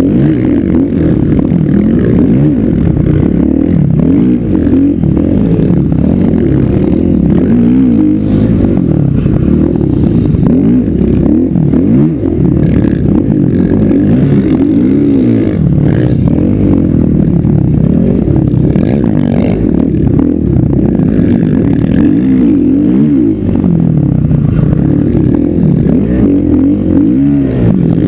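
Dirt bike engine revving under load as it is ridden through sand dunes, its pitch climbing and dropping over and over with the throttle.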